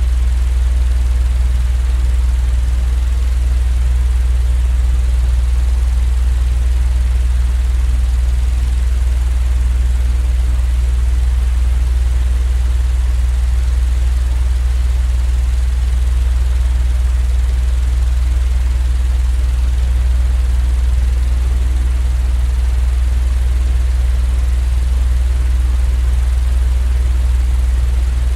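A steady, unchanging low drone with a faint even hiss above it: a continuous white-noise sleep recording of machine hum.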